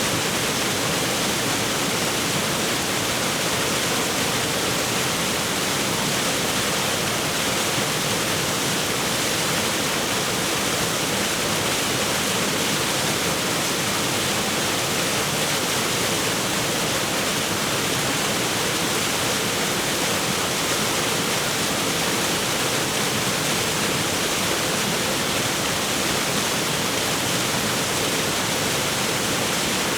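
Waterfall: falling water rushing steadily, an even, unbroken hiss with no pauses or changes.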